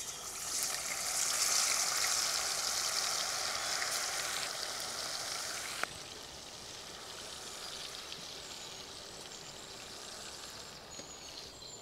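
Marinated boneless chicken pieces going into hot oil in a steel kadai, sizzling loudly at first. About halfway there is a sharp click, and after it the frying continues as a steadier, quieter sizzle.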